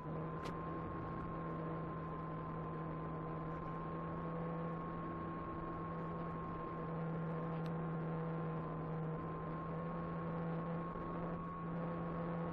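Electric motor and propeller of an Apprentice 15e RC trainer plane running at a steady throttle: a steady hum with a higher whine that drifts slightly in pitch, over a hiss.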